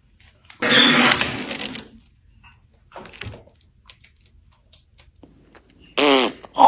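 Pet parrot calling: a harsh, noisy squawk lasting about a second and a half, then a few faint clicks, and near the end a loud call that slides up and down in pitch.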